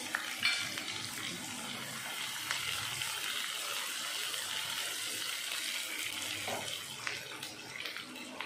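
Sliced onions and green chillies frying in hot oil in a non-stick pan, a steady sizzling hiss, with a few light knocks of a wooden spoon stirring them.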